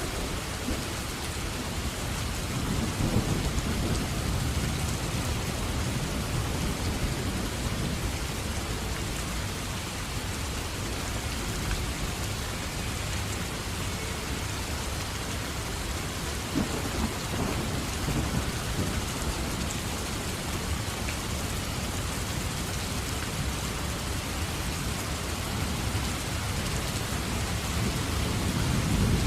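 Steady rain falling, with low rolling thunder rumbling up a few times: about three seconds in, again around the middle, and once more near the end.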